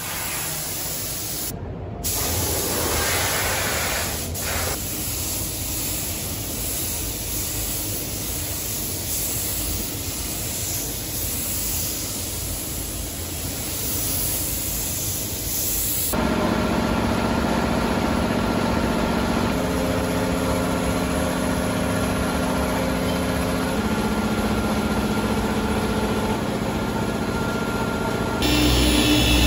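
Compressed-air spray gun hissing steadily as it sprays paint onto a car fender. About halfway through, a steadier hum with a few held tones takes over, and near the end a louder low whirring starts.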